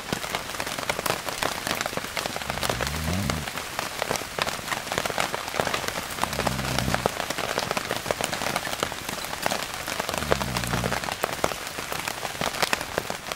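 Heavy rain pattering steadily, with a sleeping person snoring low about every three to four seconds, three snores in all.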